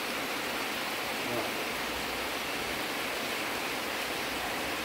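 Steady hiss of rain falling on trees and open ground as a thunderstorm shower arrives.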